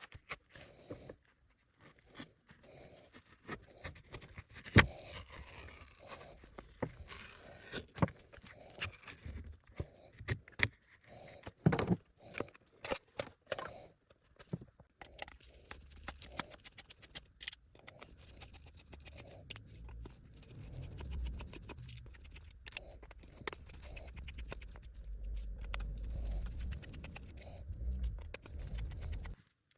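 Small hand tools and parts scraping, clicking and tapping against a smartphone during a screen replacement, in scattered short sounds; a low rumble builds up in the second half.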